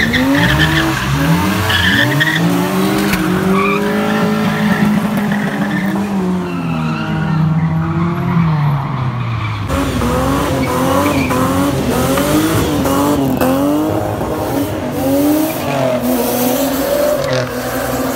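Cars drifting and spinning donuts on asphalt: engines revved hard with their pitch sweeping up and down in long arcs, and tyres squealing and skidding. From about ten seconds in, the revs rise and fall in quicker, shorter wobbles.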